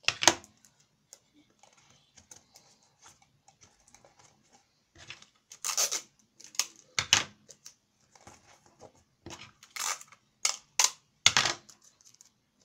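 Sticky tape being pulled off its roll and torn, in about six short, sharp rips spread over several seconds, with faint handling noise between them.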